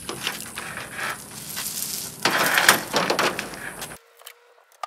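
Irregular crunching and rustling noises, loudest a little past the middle, dropping off abruptly near the end to a few faint clicks.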